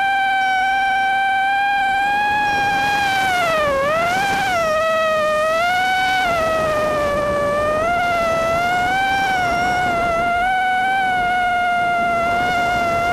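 Miniquad's brushless motors and propellers whining in flight, one steady high pitch that dips sharply about four seconds in and swings back up, then wavers slightly as the throttle changes.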